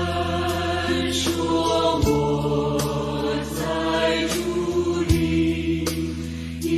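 A slow Christian worship song: sustained chords over a held bass line, with a soft regular beat a little faster than once a second.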